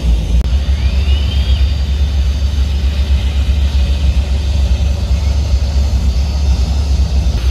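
Offshore racing powerboats' big engines idling with a deep, steady, pulsing rumble as the boats move slowly through the harbour.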